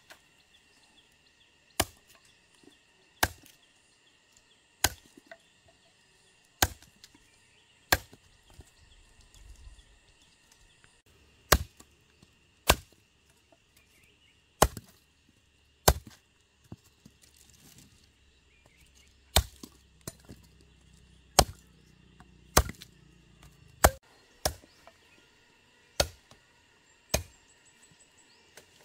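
Repeated sharp chopping blows of a blade into wood, roughly one every one to two seconds, with a couple of short pauses between runs of strokes.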